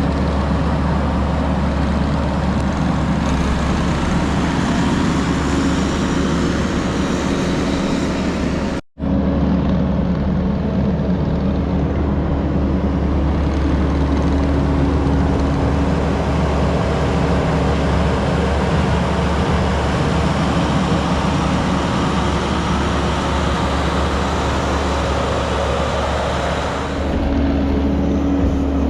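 A steady engine drone that runs on evenly, broken by a sudden cut to silence for a split second about nine seconds in.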